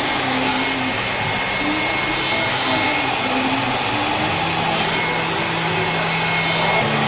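Handheld hair dryer running steadily, held close over the head, with a thin high whine over the rush of air.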